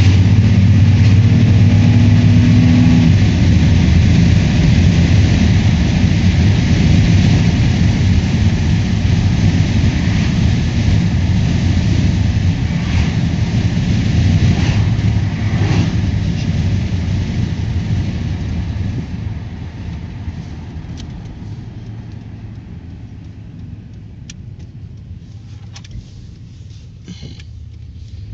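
Driving noise from a six-cylinder vehicle with a rebuilt 4L60E automatic transmission: steady engine hum and road noise. It fades steadily over the second half as the vehicle slows, with a few light clicks near the end.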